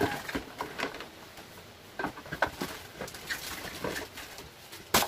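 Stiff plastic flower pots and other goods being handled in a cardboard box: scattered short knocks and rustles, the sharpest knock near the end.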